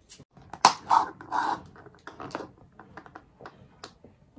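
Plastic handling noise from a straw being pushed into the domed plastic lid of a cold-coffee cup: a sharp click just over half a second in, short crackling rustles right after, then scattered small clicks and taps.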